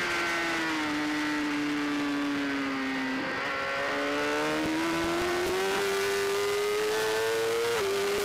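Superbike engine heard from on board at racing speed, with wind rushing over the camera: the engine note falls for about three seconds as the bike slows into a corner, breaks briefly, then climbs steadily as it accelerates out.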